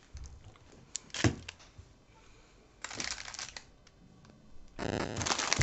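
Snack packaging being handled: a couple of sharp knocks and a short rustle, then dense crinkling of a plastic chip bag from near the end.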